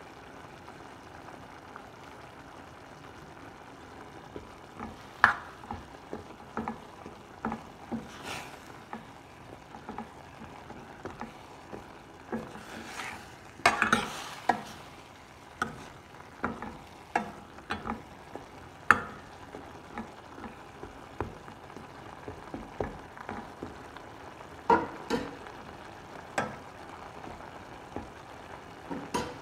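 Steel ladle stirring a simmering drumstick koottu in a metal pan, knocking and scraping against the pan again and again from about five seconds in, loudest around the middle, over a steady low sizzle.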